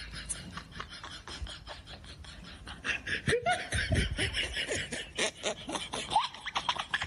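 People laughing, growing louder about three seconds in.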